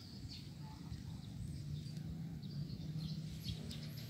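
Faint, scattered chirps of small birds over a low, steady background hum of outdoor ambience.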